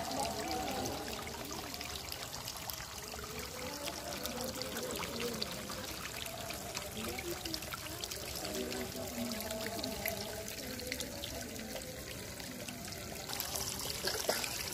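Small home-made fountain in a miniature pond: a thin water jet splashing and water trickling steadily, with the splashing growing louder about a second before the end.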